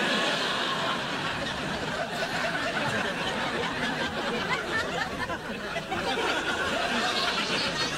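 Studio audience laughing at a sitcom punchline. The laughter swells up suddenly at the start and stays strong throughout.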